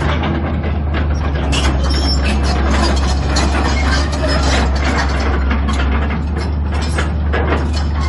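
Caterpillar 320BL crawler excavator travelling: a steady low diesel engine drone with its steel tracks clanking and rattling in quick, irregular knocks.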